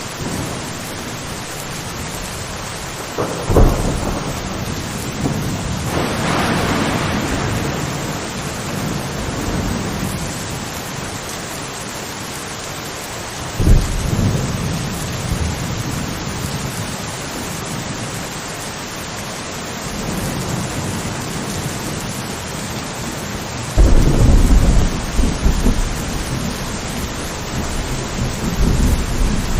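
Steady rain falling, with thunder breaking in three times: a rumble about three seconds in, another about fourteen seconds in, and a longer, louder one from about twenty-four seconds on.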